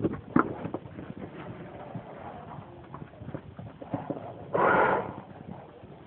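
Horses' hoofbeats on grass pasture as they run and buck: irregular dull thuds and clicks, with one short, loud rush of noise about four and a half seconds in.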